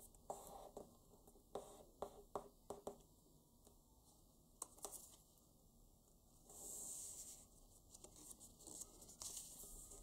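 Faint handling of paper being folded and creased: a run of light taps and crinkles in the first half, a longer rustle about two-thirds of the way through, then more soft crackling.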